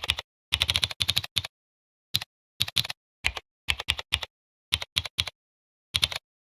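Simulated mechanical-keyboard key clicks played by the Tickeys typing-sound software as keys are struck. They come in quick runs of several clicks, with short silent pauses between the runs.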